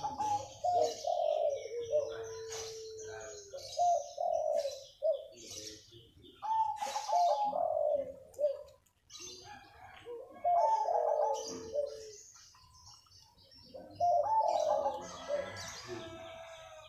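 A local-type zebra dove (perkutut) singing in full voice, giving phrase after phrase of quick, bubbling coos with short pauses between them. Higher, thin chirps from small birds come in over the song.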